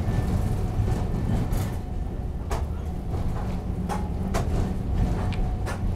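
Nagasaki Electric Tramway car 310 heard from inside as it runs slowly over points: a steady low rumble with about four sharp clacks from the wheels crossing the rail joints and the switch.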